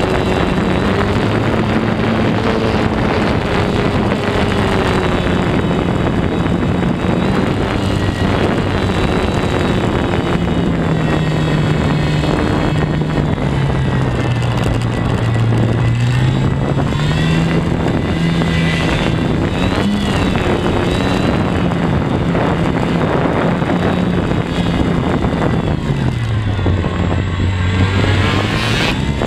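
Electric motor and propeller of a foam WOT radio-controlled model plane in flight, heard from a camera mounted on the plane, with wind rushing over the microphone. The motor's pitch wanders up and down and dips low about halfway through and again near the end.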